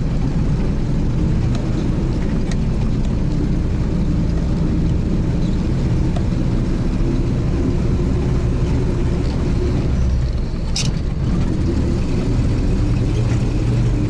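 Four-wheel-drive vehicle driving a forest dirt road, heard from inside the cab: a steady engine and road rumble, with one brief sharp click or rattle a little before eleven seconds in.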